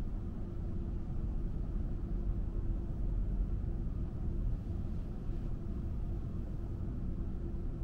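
A car driving at a steady pace: a low, even rumble of road and engine noise, with a faint steady hum.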